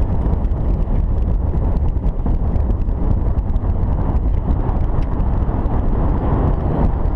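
Wind buffeting the camera's microphone, a steady low rush with faint scattered clicks.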